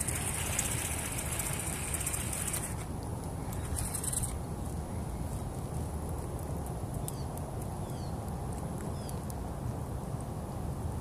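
Outdoor pond-side ambience: a steady low rumble, with a high hissing whir for about the first three seconds and again briefly about four seconds in, then a few short bird chirps.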